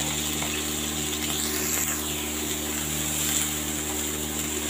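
Carrot strips frying in oil in a non-stick pan: a steady sizzle over a constant low hum.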